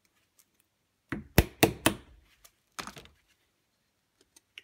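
Sharp knocks and clicks of a tool working the old slip rings off a Bosch alternator rotor: a quick run of about five a little after a second in, a few more about three seconds in, then faint ticks near the end.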